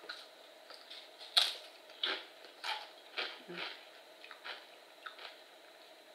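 Doritos tortilla chips crunching as they are bitten and chewed, in a string of irregular crisp crunches, the loudest about a second and a half in.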